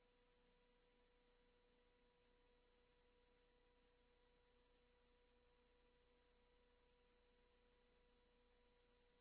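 Near silence, with a faint steady electronic tone at a few fixed pitches, like line hum on the audio feed.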